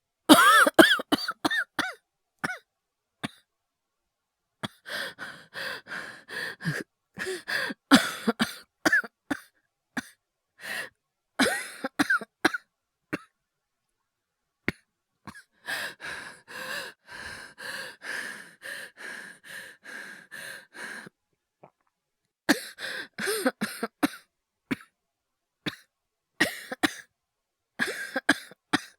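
One person's acted coughing: repeated fits of short, harsh coughs in quick runs, with a long, rapid hacking run about halfway through and brief pauses between fits. It is a performance imitating a sick person's coughing fits.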